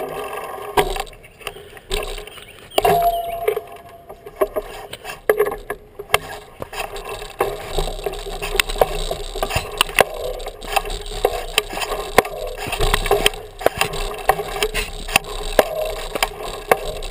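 Mountain bike rolling down a loose, stony dirt trail: tyres crunching over gravel, with the bike and its handlebar-mounted camera rattling in many sharp, irregular knocks.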